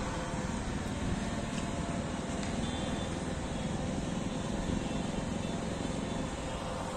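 Steady outdoor city ambience: a low, even rumble of distant traffic and wind, with no distinct events.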